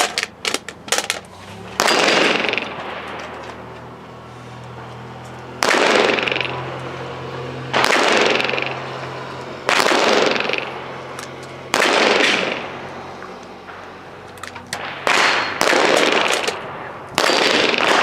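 Eight gunshots from a firearm fired at a target, about two seconds apart at first and then quicker in the last few seconds, each followed by a long fading echo. A few small clicks come in the first second.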